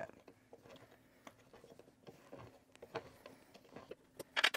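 Faint, scattered light clicks and ticks of a small hand tool turning the bolts that hold an office chair's backrest, snugging them partway. A few sharper clicks come near the end.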